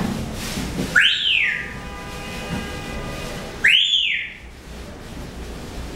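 African grey parrot whistling: two rising-then-falling whistles, one about a second in and another near four seconds.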